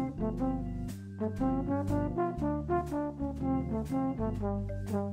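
Background music with a brass melody of short, quickly changing notes over a steady bass line, with light percussive ticks keeping time.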